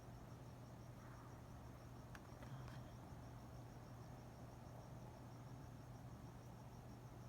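Faint night ambience: crickets chirping in a steady, even pulse over a low steady hum, with a few faint clicks about two seconds in.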